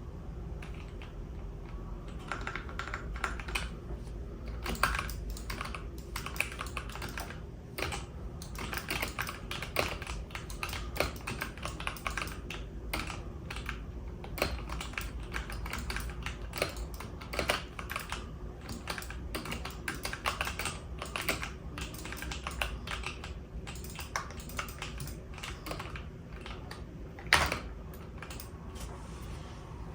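Computer keyboard keys clicking rapidly in uneven bursts, as in gameplay key presses, with one much louder click near the end. A steady low hum runs underneath.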